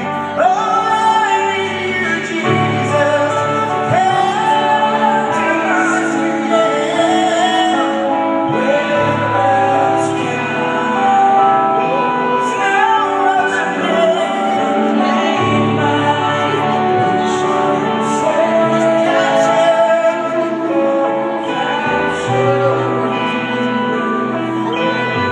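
Live band music with singing, recorded from the audience in an arena. Held chords and a sung melody run throughout, and a deep bass comes in and drops out several times.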